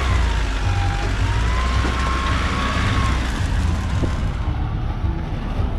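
Road traffic: a motor vehicle's engine running with a whine that rises and falls in pitch over the first three seconds, over a heavy steady low rumble.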